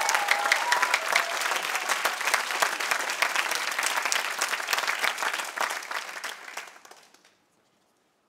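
Theatre audience applauding, the clapping thinning out and dying away about seven seconds in.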